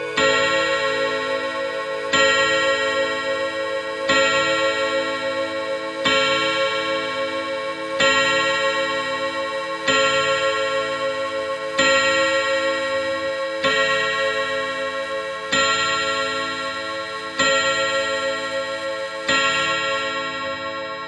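Brass chime rods of a French MK wall clock struck by the clock's hammers: eleven strokes about two seconds apart, each a ringing cluster of tones that hangs on and fades into the next.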